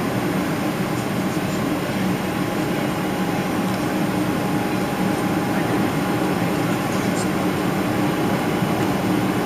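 Steady in-flight cabin drone heard from a window seat over the wing of a Boeing 777-300ER: its GE90-115B engines and the airflow past the fuselage make an even rushing noise with a low steady hum.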